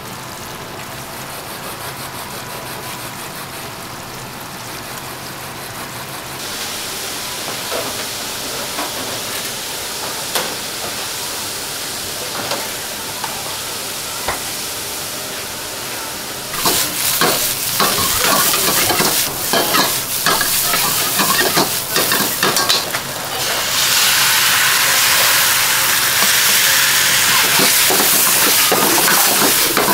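Pieces of fried pork and onions stir-fried in a wok: steady sizzling, with a metal ladle scraping and knocking against the wok from about halfway through. The sizzle grows louder about six seconds in and again near the end.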